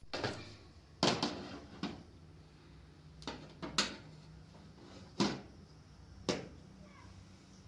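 A series of sharp knocks and clatters, about eight, coming at irregular intervals over a low steady hum.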